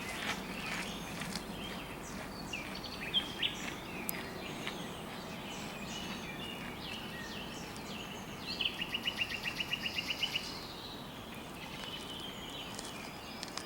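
Birds chirping and calling over a steady hiss of rain in a forest. Around the middle comes a fast, even trill of about a dozen notes lasting about two seconds.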